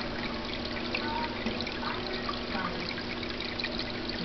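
Aquarium water trickling and bubbling steadily, with a constant low hum underneath, as from the tank's filter or pump running.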